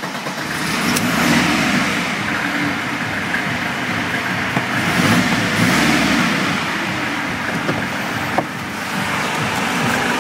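Mercedes-Benz OM604 2.2-litre four-cylinder diesel engine of a W210 running just after starting, heard from inside the cabin; its sound swells about a second in and again around five seconds. A short click comes near the end.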